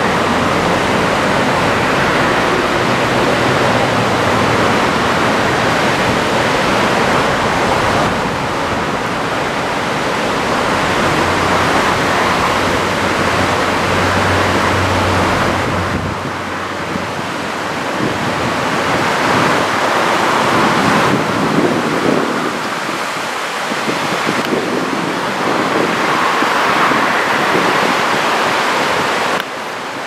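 Small, waist-high surf breaking and washing up a sandy beach: a steady rushing wash that swells and eases every few seconds, with wind on the microphone adding a low rumble in the first half.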